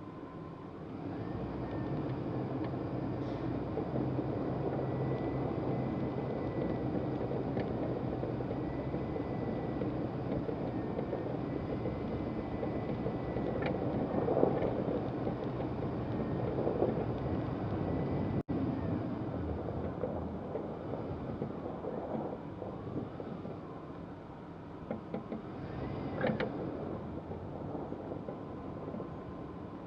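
A heavy vehicle's engine running steadily, with a thin whining tone that rises and falls at times and a few short knocks. It grows louder about a second in and eases off later.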